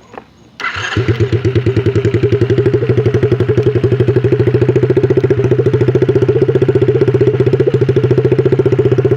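ATV (quad) engine starting about half a second in and settling straight into a steady, even idle. It has just been reassembled after cam cover work and is run to test whether the cam is rubbing.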